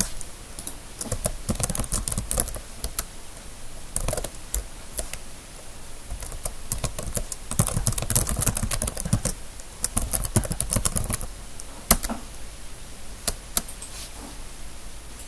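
Typing on a computer keyboard: quick runs of keystrokes, with one sharp key press standing out a little before the end and only a few scattered presses after it.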